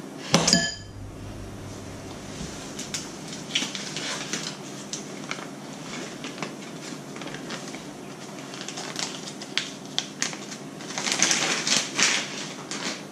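A metal spoon strikes a mixing bowl once with a short ring, then a run of small irregular clinks and scrapes against the bowl, busier near the end, as icing is stirred.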